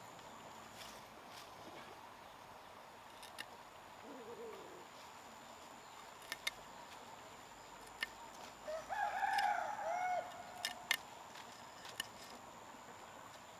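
A rooster crowing once, about nine seconds in, lasting a second and a half. Around it come a few sharp clicks from a machete blade as it cuts sweet potato stems.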